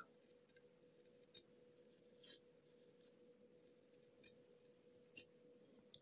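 Near silence with a faint steady hum and a handful of faint, short scratchy clicks: a small tool scraping inside the laptop's USB-C charging ports as they are cleaned.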